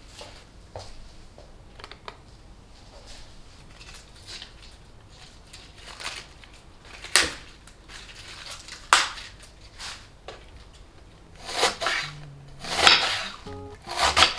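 A kitchen knife cutting through a head of green cabbage on a wooden chopping board, with loud, crisp crunching cuts in the last few seconds. Earlier there are a few light knocks and two sharper knocks as the cabbages are handled on the board.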